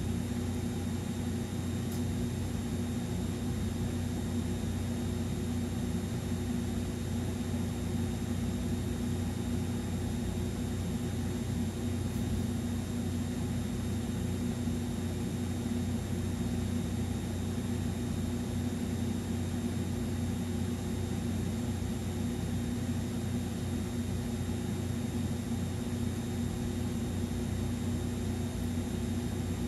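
A steady, unchanging low hum with a hiss over it, like an appliance or fan running in a room; no other sounds stand out.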